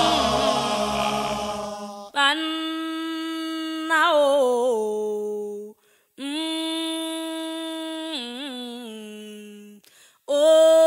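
Band music fades out in the first two seconds, then a solo voice sings unaccompanied in three long held phrases. Each ends in a wavering ornament, with a short breath between them.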